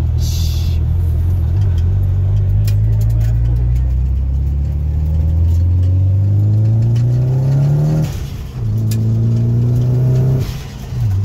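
Nissan SR20DET turbocharged four-cylinder engine pulling hard under acceleration, heard from inside the car: the engine note climbs steadily, drops sharply with a gear change about eight seconds in, climbs again, then falls off near the end as the throttle is lifted.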